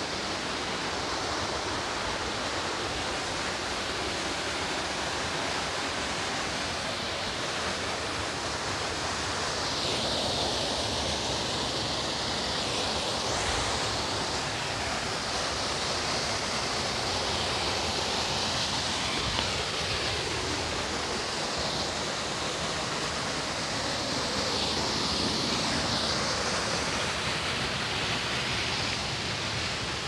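Rushing water from the waterfall, a steady hiss that swells a little now and then.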